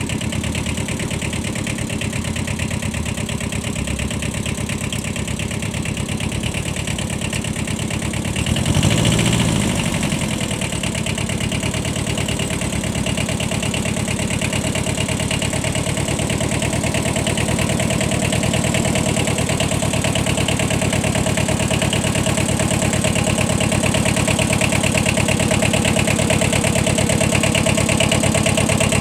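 Small diesel engine of a compact Kubota 4x4 tractor running under way, with a brief rise in revs about nine seconds in and growing slowly louder toward the end.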